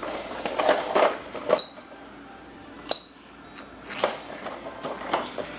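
Knocks and plastic clatter from a toddler's plastic ride-on toy being pushed and bumped about on a wooden floor, with two brief high squeaks about a second and a half and three seconds in.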